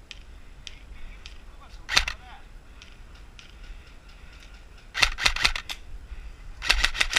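Airsoft guns firing: a single sharp crack about two seconds in, then a quick burst of about six shots around five seconds in, and a faster, denser burst of shots near the end.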